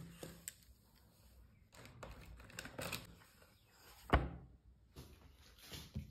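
A thick textbook being handled on a wooden desk: soft paper rustles and light knocks, then one sharp thump about four seconds in as the book is shut.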